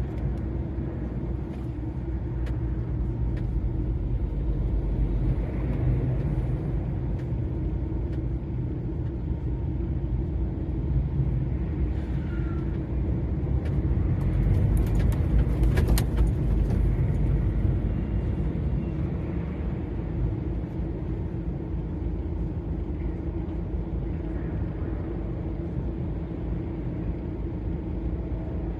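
DAF XF 480 lorry's six-cylinder diesel engine and tyre noise while cruising on a motorway, a steady low drone with a held hum. It grows a little louder about halfway through, where a short run of clicks is also heard.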